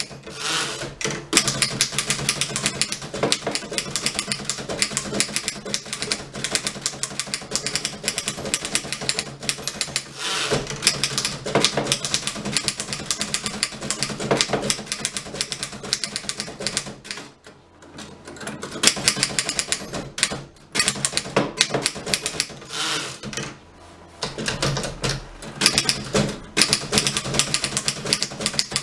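A 1915 Fox No.24 manual typewriter being typed on fast: a rapid run of key and typebar clacks with a couple of brief pauses.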